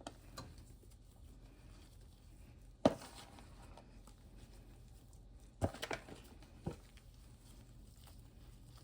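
A few sharp knocks and clatters of kitchen handling while dry cornbread mix is added to the stuffing pan: one loud knock about three seconds in, then a short cluster of knocks near six seconds and a single one just after.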